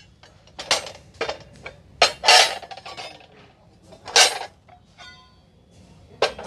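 Heavy 12-inch iron dosa tawas (paper-roast griddles) clanking against one another as they are lifted from and set back on a pile: about half a dozen separate sharp metallic knocks, some with a short ring.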